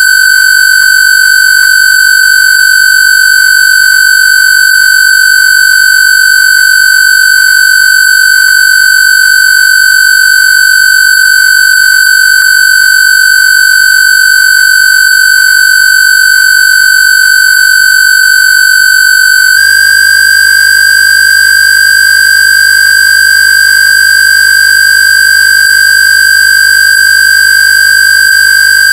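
Loud, steady electronic square-wave tone, a Rife/AWG frequency, held on one pitch near 1.5 kHz with a bright, buzzy edge. It steps up a little in pitch about twenty seconds in.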